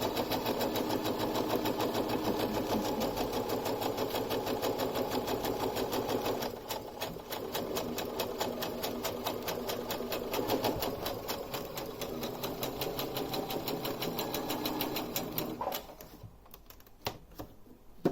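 Brother sewing machine stitching a test seam, its needle mechanism clattering in a rapid, even rhythm that eases slightly about six seconds in. It stops near the end, leaving a few faint clicks.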